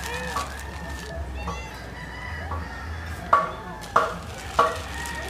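Short, repeated animal calls. Faint higher calls come early on, then four short loud calls follow in the second half, about two-thirds of a second apart.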